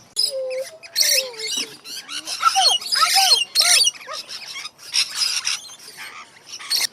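Aviary birds calling and squawking: a rapid series of loud, harsh calls, with shorter rising-and-falling calls between them.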